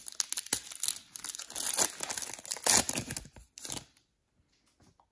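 Foil 2020 Panini Select trading-card pack being torn open and crinkled by hand, a dense run of crinkling and tearing that stops about four seconds in.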